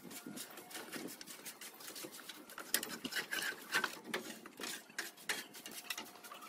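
Roof tiles clinking and clattering against each other as they are handled and knocked loose, a rapid, irregular run of sharp clicks and knocks.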